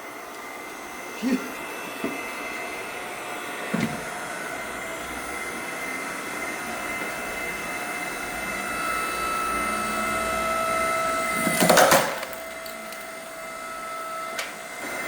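8-ton electric hydraulic log splitter running, its motor and pump whining steadily while the ram forces a log about 40 cm across onto the wedge. The strain builds with a few knocks in the first four seconds, then about 12 seconds in the wood splits apart with one loud crack.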